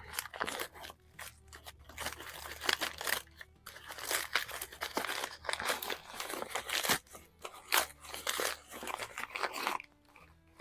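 Packing wrap being torn and crumpled by hand: irregular crinkling and tearing bursts with a few sharp clicks, as parts are unwrapped.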